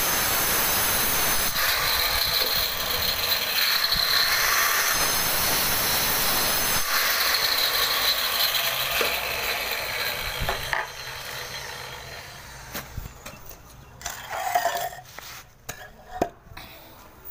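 Handheld electric stone cutter grinding through a granite slab along a curved cut, a loud, harsh hissing whine. About eleven seconds in the cutting sound dies away, leaving a few scattered knocks as the stone is handled.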